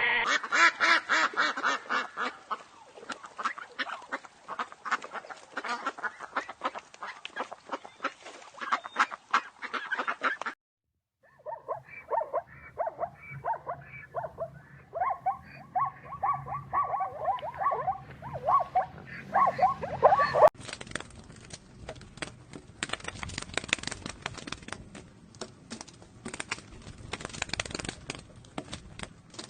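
Ducks quacking: many short calls in quick succession. The sound changes abruptly twice, with a stretch of clearer pitched quacks in the middle.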